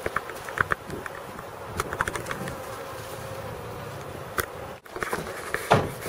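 Honeybees from a wild colony buzzing in flight around their entrance in the shed wall: a steady hum, with a few short ticks.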